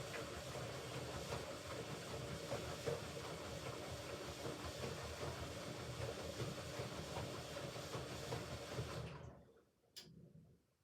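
Hoover Ecologic Computer Washer 1300 washing machine mid rinse cycle: a steady noise of running machinery and water with a low hum cuts off about nine seconds in, followed a second later by a single click.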